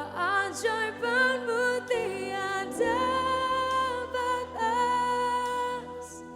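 Slow Christian worship music in a live band arrangement: sustained chords hold underneath while a wavering melody line moves above them, with no words yet.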